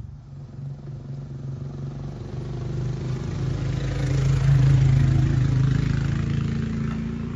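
A motor vehicle's engine passing by, growing louder to a peak a little past the middle and then fading.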